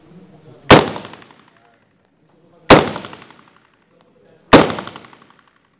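Three rifle shots fired one at a time from a semi-automatic rifle, about two seconds apart, each a sharp crack with an echo that dies away over about a second.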